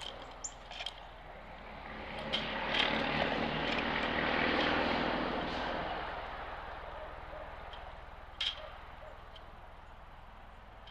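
Engine noise of a passing vehicle or aircraft, swelling up over a couple of seconds and slowly fading away. A few short sharp ticks or chips stand out, one near the end louder than the rest.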